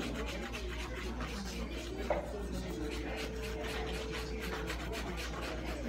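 Nail salon room noise: a steady low hum under faint rubbing and scraping, with a single click about two seconds in and a steady mid-pitched tone lasting about two seconds in the middle.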